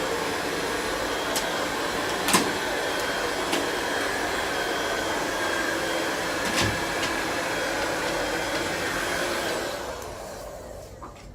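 Electric heat gun blowing steadily with a faint high whine, used to soften vinyl wallpaper; a few light knocks, and the blower winds down near the end.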